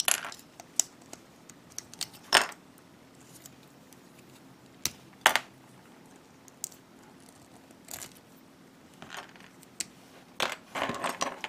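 Small plastic parts of a Bandai G-Frame Gundam figure being handled and pressed together: a string of sharp, irregular plastic clicks and snaps, the loudest about two and a half and five seconds in.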